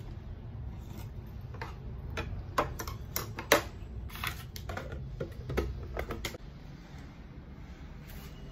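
Sharp clicks and knocks of a metal spoon against a plastic food container and a ceramic bowl, and the container being handled and moved, the loudest knock about three and a half seconds in. A low steady hum runs underneath.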